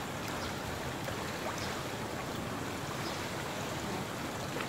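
Swimming pool water lapping and sloshing against the pool edge, a steady wash of noise with a few faint small splashes.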